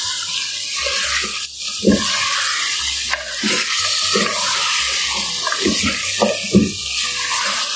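Mutton pieces sizzling in hot oil in a clay handi, a steady frying hiss, while a wooden spatula stirs them with irregular scrapes and knocks against the pot. The meat is being fried with its masala (bhuna).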